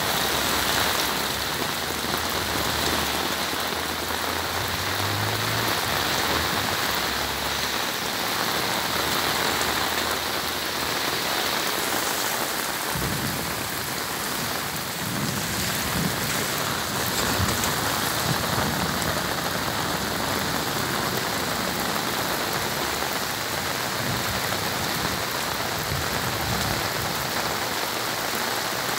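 Heavy rain pouring steadily onto the street, parked cars and flooded pavement, a dense, even hiss of rain without a break.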